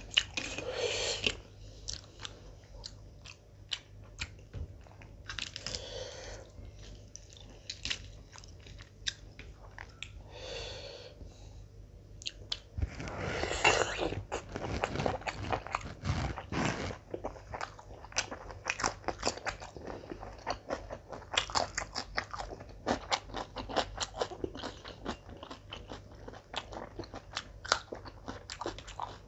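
Close-up mouth sounds of eating by hand: wet chewing and lip-smacking on mutton biryani, with a louder, busier run of biting and chewing on a roast chicken leg about halfway through.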